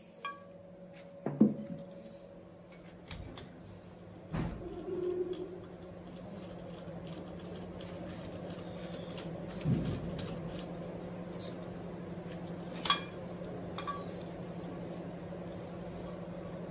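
Scattered metallic clicks and knocks of a compression-tester fitting and hand tools being handled on a diesel engine's aluminium cylinder head, over a faint steady hum.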